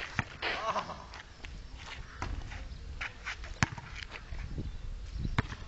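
A basketball bouncing on a concrete court in sharp, irregularly spaced thuds, the loudest about 3.6 and 5.4 seconds in, with running footsteps between them.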